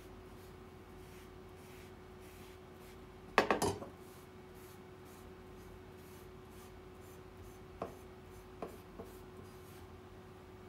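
A cloth rubbing over a knife's wooden handle in faint strokes, over a steady low hum. A loud clattering knock comes about a third of the way in, and a few light taps follow later.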